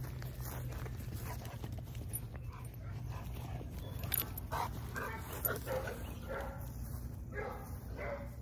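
Footsteps of Nortiv 8 Armadillo hiking boots brushing through short grass on sandy ground, over a steady low rumble. From about four seconds in come several short pitched calls from an animal.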